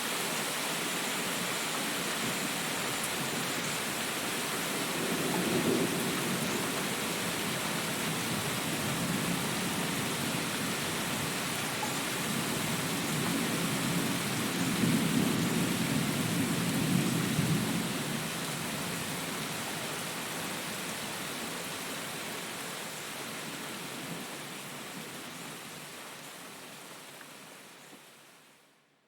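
Steady rain falling in a rainforest, with distant thunder rumbling low twice: a short roll about five seconds in and a longer one in the middle. The rain fades out near the end.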